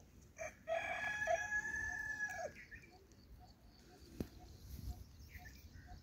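A rooster crowing once: a call of about two seconds that drops in pitch at its end. Faint bird chirps are heard around it.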